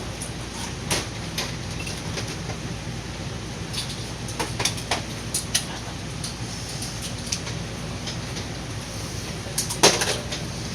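Pistol cartridges being pressed one by one into magazines against the spring: a string of sharp, irregularly spaced clicks, with a louder click near the end, over a steady low hum.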